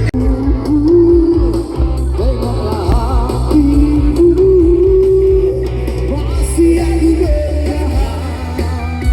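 Live band playing a song: a steady bass line and guitar under a held, gently wavering melody line.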